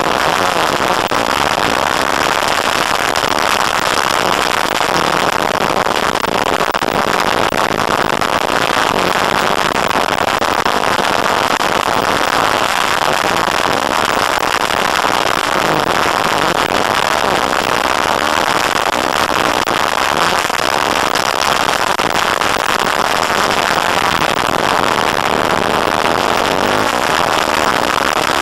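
Off-road vehicle's engine running hard on a dirt track, its revs rising and falling, heard from an onboard camera under a loud, even noise.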